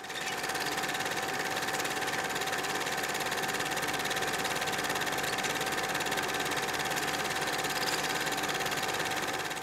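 Old film projector running: a steady, fast mechanical clatter and whir that starts abruptly and cuts off near the end.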